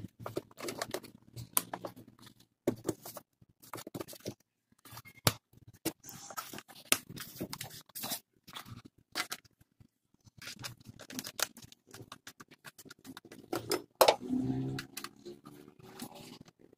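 Hands handling the plastic engine cover in a Suzuki WagonR's engine bay: irregular clicks, taps and scraping, with one louder knock near the end.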